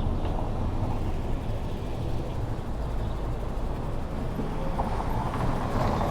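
Steady low rumble of outdoor street noise, with no distinct events standing out.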